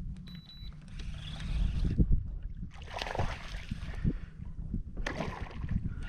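Wind buffeting the microphone as a low rumble, with a few bursts of water splashing and sloshing, likely from a hooked fish being fought at the surface.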